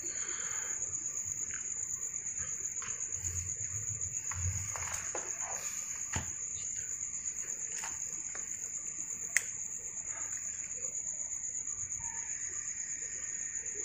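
Crickets trilling steadily in one continuous high-pitched note, with scattered faint clicks and knocks and one sharp click about nine seconds in.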